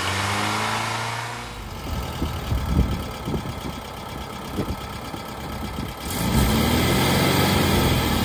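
A revving-engine sound effect under the opening title, then a 1972 Volkswagen Type III's air-cooled flat-four idling with uneven thumps. The engine runs louder from about six seconds in.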